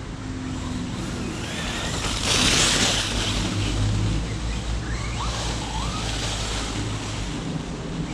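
FTX Carnage RC truck with a brushless motor driving over wet leaves and mud: the electric drive whines up and down with the throttle, and the tyres scrabble through the leaves in a loud hissing burst about two seconds in.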